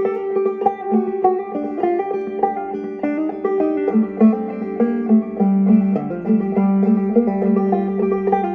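Banjo played clawhammer style: a quick, unbroken run of plucked notes over ringing, droning strings, with a stronger low note held through the second half.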